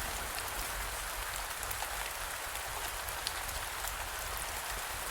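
Steady rain falling on a surface, with scattered patters of individual drops.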